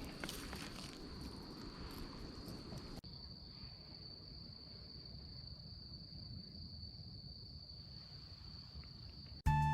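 Insects singing one steady, unbroken high note. Water sloshes faintly for the first three seconds, and music comes in right at the end.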